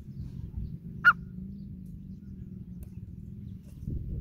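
Grey francolin giving a single short, sharp call note about a second in, over a low steady background rumble.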